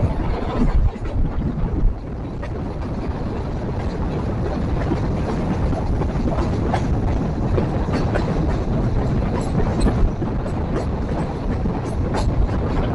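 Passenger train running along the track: a steady rumble of the moving coach, with scattered clicks of the wheels over the rails that come more often in the second half.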